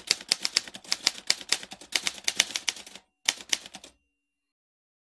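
Typewriter key strikes in a rapid, uneven run of about seven clacks a second. The run breaks off for a moment about three seconds in, then a short last flurry stops about four seconds in.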